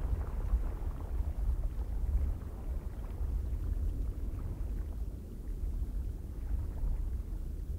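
Low, rumbling wind noise, most of its weight deep in the bass, rising and falling irregularly without any tone or distinct knocks.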